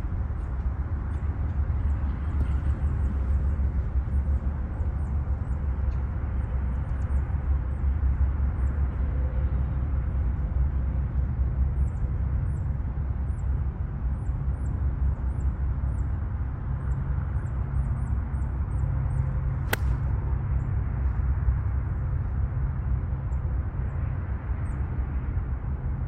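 Steady low outdoor rumble with faint high bird chirps. About three-quarters of the way through, a single sharp click: a 52° Titleist Vokey wedge striking a golf ball.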